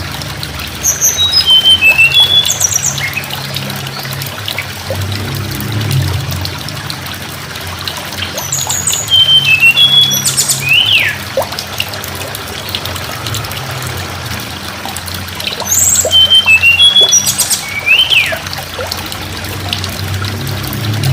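Tledekan gunung songbird repeating a short song phrase three times, about every seven or eight seconds. Each phrase is a quick run of high whistled notes ending in a sharp falling note, heard over a steady rushing of water and a low hum.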